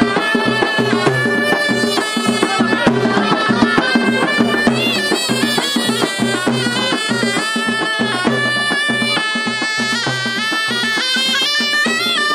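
A traditional reed pipe with a bright, shawm-like tone playing a fast, ornamented folk melody, with a low pulsing beat underneath.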